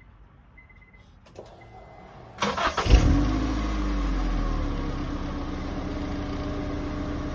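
Car engine cranking briefly and catching about three seconds in, then settling into a steady idle through an exhaust fitted with a homemade empty drink can muffler.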